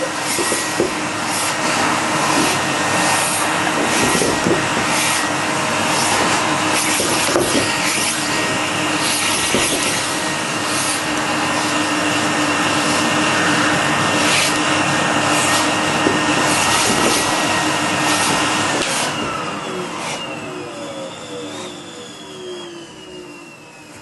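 Household vacuum cleaner running with a steady motor whine, broken by scattered knocks and bumps. About nineteen seconds in it is switched off, and the whine falls in pitch as the motor spins down.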